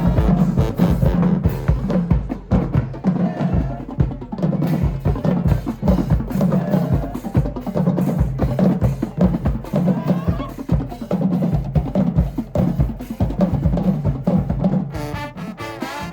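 High school marching band drumline playing a fast cadence on snare and bass drums, with the horns coming in near the end.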